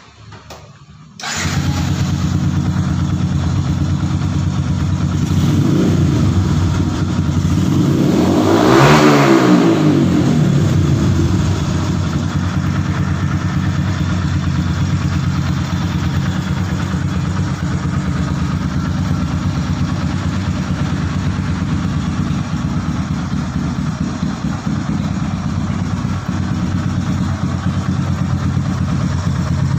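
Custom Yamaha Scorpio motorcycle's single-cylinder engine starting about a second in and settling to idle. It is blipped lightly once, then revved once more strongly a third of the way in, rising and falling back to a steady idle.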